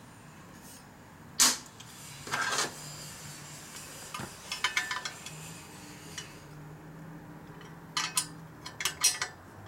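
Metal hand tool clinking and scraping against the engine and frame parts of a Harley-Davidson Sportster as a fastener is worked by hand. There is a sharp clink about a second and a half in, another about a second later, and quick runs of clinks near the middle and near the end.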